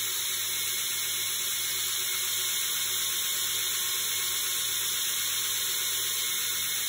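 Belt grinder running steadily at low speed, its abrasive belt grinding the bevel of a Kh12MF steel knife blade held in a jig: an even hiss over a low motor hum.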